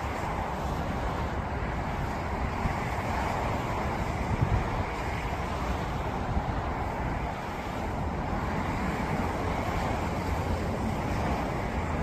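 Distant jet roar of a Boeing 737-800's CFM56 engines on final approach, mixed with wind buffeting the microphone: a steady rushing noise with a brief louder bump about four seconds in.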